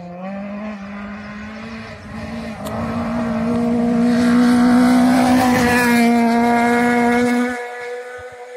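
Rally car passing flat out on a gravel stage, its engine held at high, nearly steady revs, with a hiss of tyres on loose gravel. It builds to its loudest about halfway through, then drops away sharply near the end.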